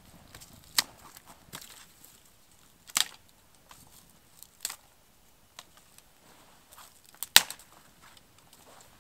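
Sharp snaps and cracks of dry wood: five or so separate cracks a second or two apart, the loudest about seven seconds in.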